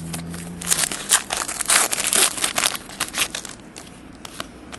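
Foil trading-card pack wrapper crinkling and tearing as a pack is ripped open, most intense for a couple of seconds about a second in, then a few lighter crackles as it is handled.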